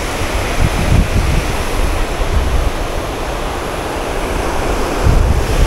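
Water rushing steadily over a low dam spillway, with wind buffeting the microphone in low gusts about a second in and again near the end.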